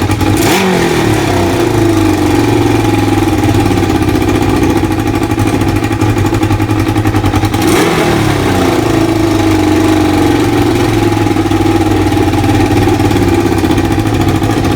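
Kawasaki ZL600 Eliminator's inline-four engine running and blipped twice, about half a second in and again about eight seconds in. Each time the revs take a while to drop back to idle, which is slow for a freshly adjusted air/fuel mixture and which the owner thinks may just need riding in.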